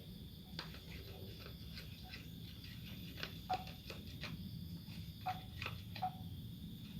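Faint, irregular clicks and light taps of a stirrer working slime glue and water in a plastic container, with three short chirp-like sounds in the second half.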